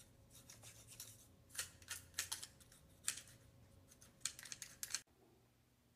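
Hands working on the wooden parts of a homemade mousetrap car: a string of faint, short scratchy rasps and clicks as a wooden dowel and the trap are handled. It stops about five seconds in.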